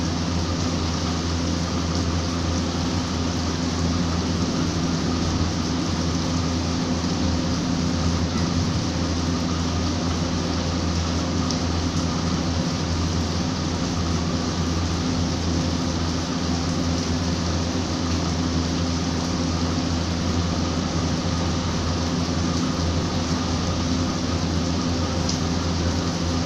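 Steady rain falling, an even hiss with a constant low hum underneath.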